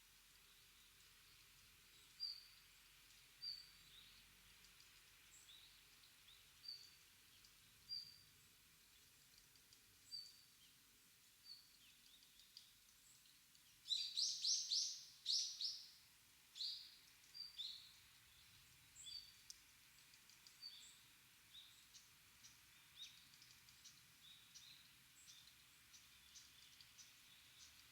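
Small birds calling in a bamboo grove: short, high chirps repeated about once a second, with a louder flurry of rapid calls about halfway through, then softer scattered chirps, over a faint steady background hiss.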